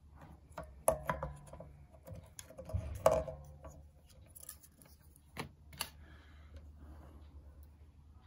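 Plastic Stratocaster pickup covers being worked off the pickups and handled: a few sharp clicks and small knocks, the loudest about a second in and about three seconds in, with two more just before six seconds.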